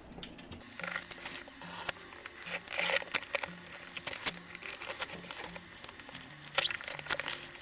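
A cardboard shipping box being cut open by hand: packing tape and packaging tearing and crinkling, with irregular scrapes and sharp clicks.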